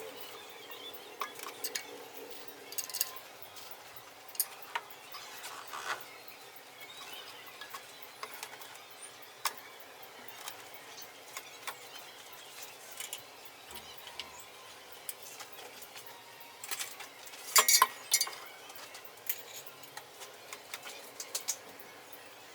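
Metal hand tools and bolts clinking and knocking against the engine-mount parts, in scattered light taps with a burst of louder clanks near the end.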